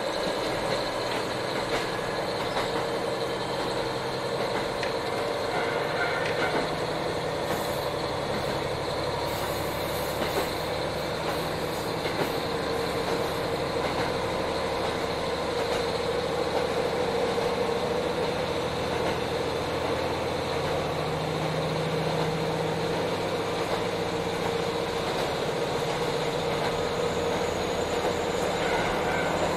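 Inside a JR Hokkaido KiHa 40 diesel railcar under way: the steady drone of the diesel engine mixed with wheel and rail noise. The engine note grows stronger about twenty seconds in.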